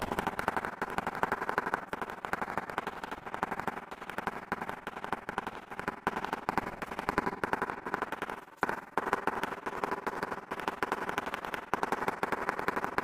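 Rubber mallet tapping rapidly and repeatedly on a ceramic tile, bedding it into the mortar of a door threshold; a quick, continuous run of dull knocks with a brief pause about two-thirds of the way through.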